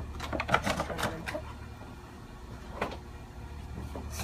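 Funko Pop cardboard box and its plastic insert being opened by hand: a quick run of short crinkles and clicks in the first second and a half, then a couple of single clicks later.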